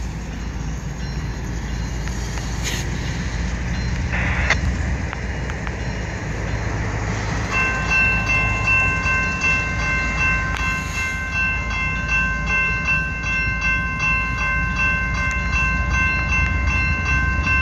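Railroad grade-crossing warning bell starts ringing about seven and a half seconds in, a fast, even, repeated ding over a steady low rumble, signalling an approaching train.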